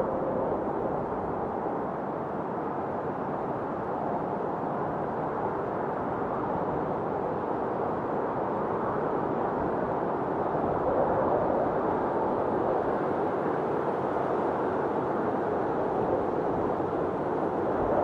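A steady, even rushing noise, dull rather than hissy, with no separate events or changes.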